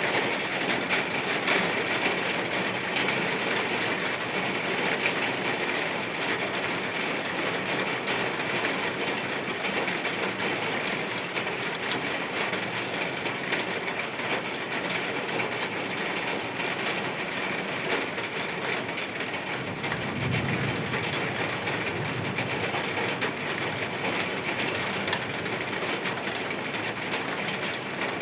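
Steady rain falling, a dense even patter of drops. About twenty seconds in, a brief low rumble swells and fades.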